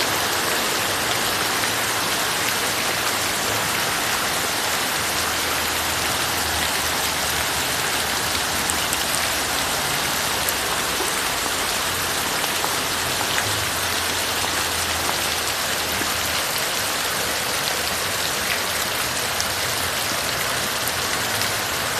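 Heavy rain pouring down steadily: a dense, even hiss with a few sharper drop hits scattered through it.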